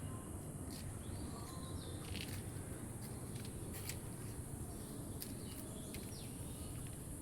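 Outdoor ambience: a steady high-pitched insect drone, with a few short bird chirps and clicks scattered through it.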